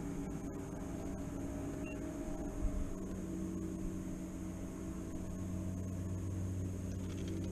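Steady low electric hum with a faint high whine; its pitch shifts slightly about three seconds in. A soft bump sounds just before that.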